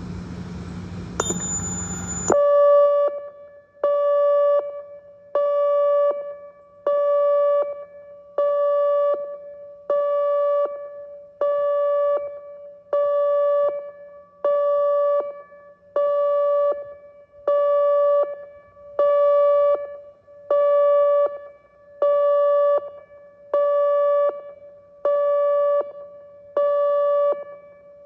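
ATI HPSS-16 electronic outdoor warning siren sounding its pulse tone: one steady pitch switching on and off about once every second and a half, each blast about a second long. The pulsing starts about two seconds in, just after a brief thin high tone over a background rumble.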